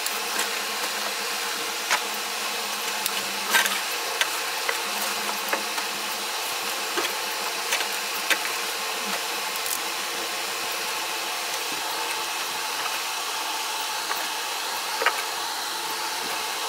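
A few light clicks and knocks over a steady hiss, as the stopped washing machine is switched off and opened to check inside.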